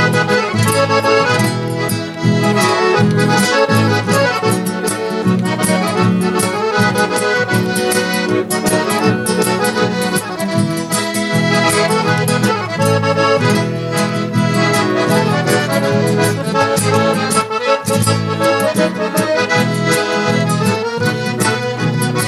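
Instrumental break in a Gaúcho dance song: a piano accordion plays the melody over a steady bass and rhythm accompaniment, with no singing.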